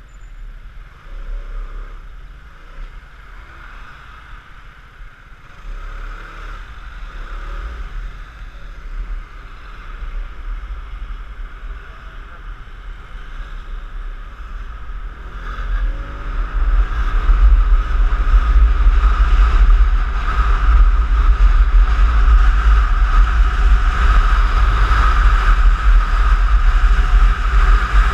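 Piaggio X9 scooter's engine and wind rumbling on the camera's microphone while riding in traffic. Moderate at first at walking pace, then the engine note rises as the scooter accelerates a little past halfway, and the wind rumble grows loud and stays steady.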